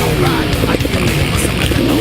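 Heavy metal music over motocross motorcycle engines revving, their pitch sliding down and up.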